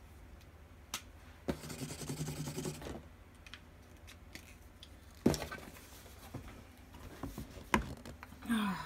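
Handling noises from unpacking a cardboard box: a rustle of packaging, a sharp knock about five seconds in, and a few light clicks.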